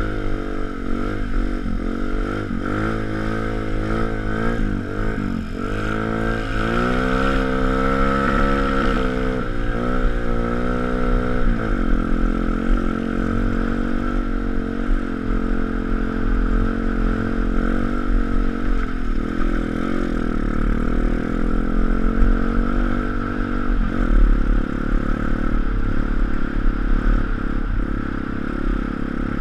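Pit bike's 160cc YX single-cylinder four-stroke engine under way, revving up and down repeatedly for about the first twelve seconds, then running at a steadier throttle.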